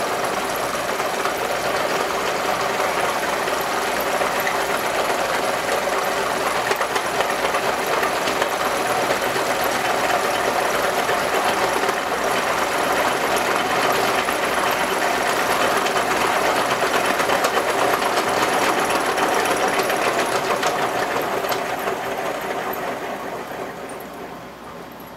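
Electric coil-winding machine running steadily, its motor and drive whirring as it winds fine number 40 copper magnet wire onto a transformer bobbin. The machine winds down and goes quiet near the end.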